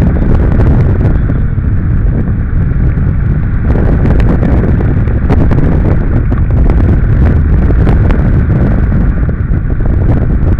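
Wind rushing over the microphone of a camera mounted on a hang glider's wing in flight: a loud, steady rumbling buffet with some crackles in the middle.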